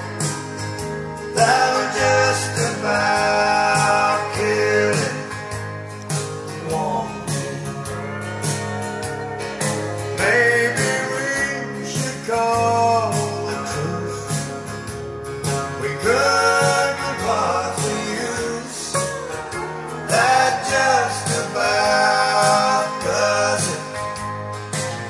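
A pop song with singing over a steady beat, played back through the two-way bookshelf speakers: SB Acoustics SB15NAC woofers and SB29RDNC tweeters driven by a Blameless 100 (BL100) power amplifier.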